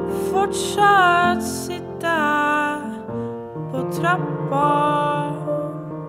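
A woman sings held notes that glide between pitches, with piano accompaniment.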